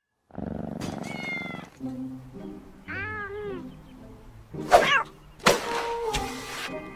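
A cat meowing several times: a short meow about a second in, a quick run of rising-and-falling meows around three seconds, and a loud meow near five seconds. This is followed by a burst of noise lasting about a second.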